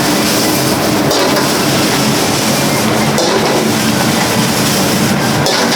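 Loud, steady roar of a busy restaurant kitchen, the kind of noise made by high-flame gas burners and the extractor hood, with a few short clatters of cookware.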